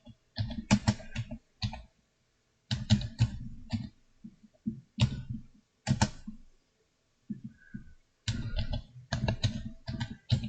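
Typing on a computer keyboard: bursts of rapid keystrokes with short pauses between them, as a search query is entered.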